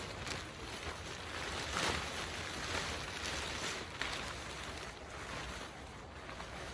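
Wind rushing in gusts, swelling and fading, with a sharp knock or snap about four seconds in.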